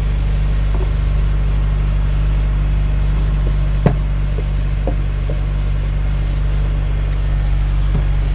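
Honda S2000's F22C inline-four engine idling steadily just after a timing chain service, with a few light clicks, the sharpest about four seconds in. The mechanics hear an odd noise in it that they take for a bearing or maybe the belt.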